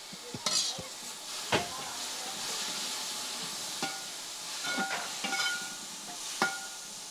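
Beef roast sizzling in a large metal pan while it is stirred with a metal spoon. The spoon scrapes and knocks against the pan about eight to ten times, the loudest knock about one and a half seconds in, and some knocks ring briefly.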